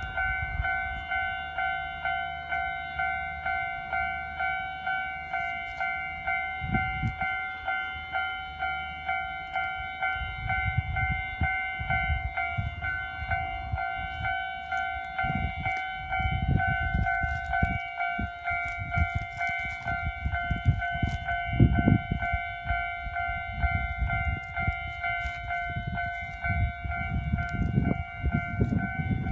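Japanese level crossing warning bell ringing in steady repeated strokes, about one and a half a second, as a Nagano Electric Railway electric train runs through the crossing with a low rumble and clattering wheels, loudest about two thirds of the way in.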